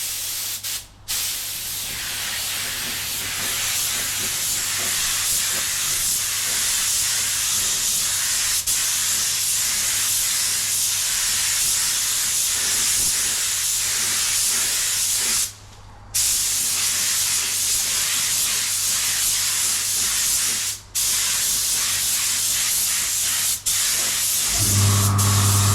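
Fuji HVLP spray gun spraying clear coat: a steady hiss of air and paint that breaks off briefly about four times, over a steady low hum that grows louder near the end.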